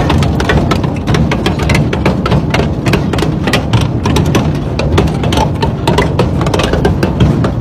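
Twin-shaft industrial shredder's toothed rotors chewing up long bars: rapid, irregular cracks and snaps over a steady low rumble.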